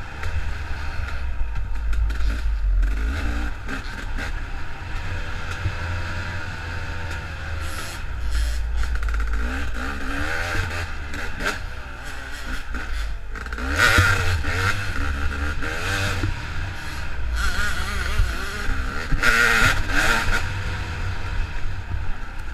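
KTM dirt bike engine running on a wooded trail, rising and falling with the throttle, with two louder surges in the second half.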